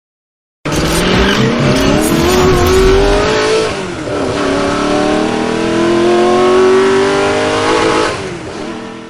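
A vehicle engine accelerating hard. It cuts in suddenly, climbs in pitch, drops back about four seconds in, climbs again, then fades away near the end.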